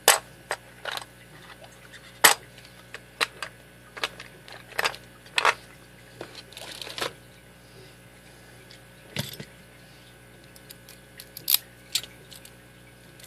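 Irregular sharp metallic clicks and small rattles of a key being worked in a heavy steel padlock, with a few brief rustles of handling in between.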